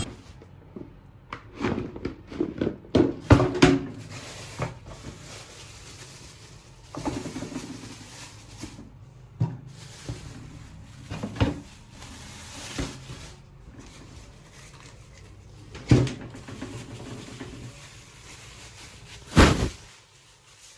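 Irregular knocks, clicks and thumps of objects being handled, with a cluster of clicks in the first few seconds, patches of soft rustling, and two louder knocks, one about 16 seconds in and one near the end.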